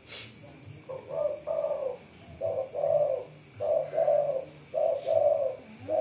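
Caged doves cooing: a steady run of short, rhythmic coo phrases, about one a second.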